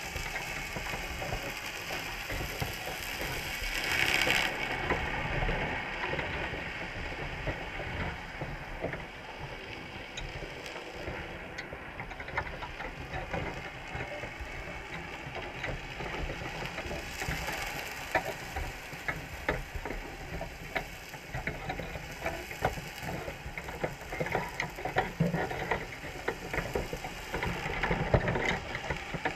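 Dense, irregular underwater clicking and crackling from Dungeness crabs' shells and legs scraping against one another and against the wire trap as they crowd the bait bag. There is a brief louder rush about four seconds in.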